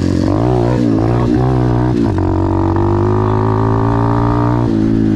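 Apollo pit bike's single-cylinder engine being ridden on a dirt trail: the revs rise and fall with quick throttle blips, then hold steady for a couple of seconds before the throttle is rolled off near the end.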